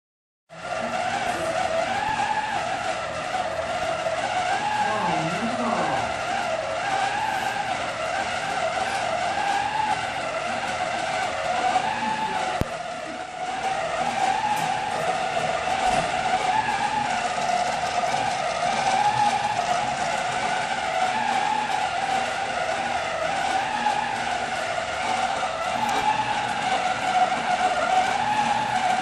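Electric paper towel dispenser's motor running on without stopping, a steady whine that wavers slightly in pitch and dips briefly a little before the middle, as it keeps feeding out paper: the dispenser is malfunctioning.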